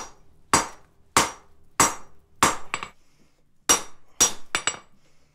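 Hand hammer striking red-hot steel held on an anvil, drawing down and dressing the tool's shaft: a steady blow about every 0.6 s, each with a short metallic ring. There is a pause around the middle, and a few lighter taps follow some of the blows.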